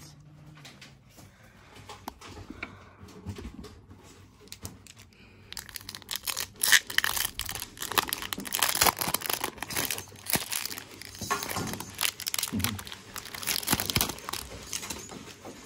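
Foil Pokémon booster pack wrapper being torn open and crumpled by hand. After a few seconds of faint handling, a dense run of crinkling and crackling starts about five or six seconds in and carries on.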